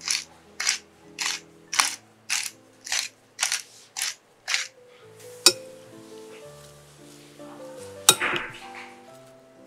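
Salt shaken over a shredded cabbage and cucumber salad in a glass bowl, in about a dozen even scratchy strokes, roughly two a second, stopping after about four and a half seconds. A sharp click follows, and about eight seconds in a metal spoon clinks against the glass bowl as pepper is added.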